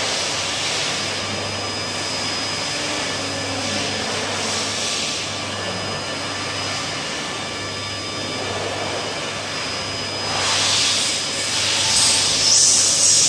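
A steady machine drone with a low hum and a thin high whine underneath, with two brief swells of hissing near the end.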